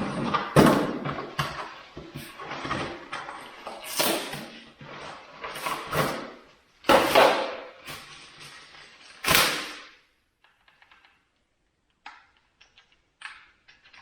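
Handling noise from unpacking a cordless tool kit: a string of knocks, clunks and rustles as items are lifted out and set down, stopping about ten seconds in, with a few faint clicks after.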